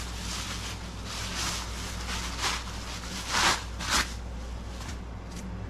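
Bubble wrap rustling and crinkling as it is pulled off a round metal catalytic combustor, with a few louder crackles past the middle, over a steady low hum.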